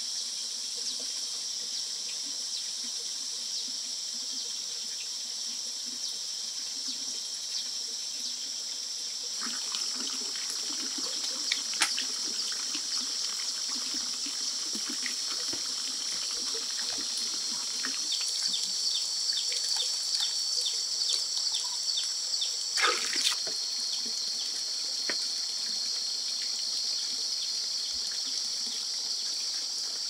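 Steady high-pitched buzzing of insects, with water trickling and a run of light clicks and knocks from about ten seconds in. A second steady high tone joins about eighteen seconds in.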